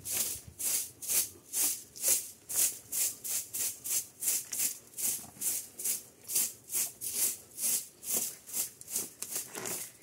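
Steady, even rhythm of short swishing, scraping strokes, about two a second, like something rubbed or brushed back and forth by hand.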